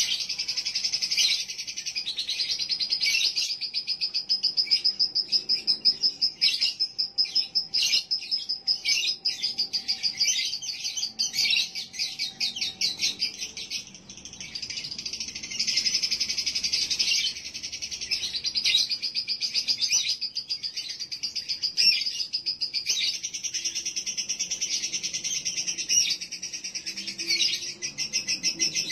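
Lovebird chattering in long, rapid, shrill trills, with a few short breaks, a 'pancingan' lure call played to rouse a male lovebird into breeding condition.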